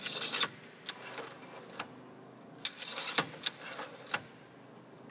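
McDowell safety starter on an Aeronca Chief being worked and recoiling, the check for full recoil: sharp metallic clicks from the starter mechanism. There is a quick flurry at the start, single clicks about one and two seconds in, and another flurry around three seconds.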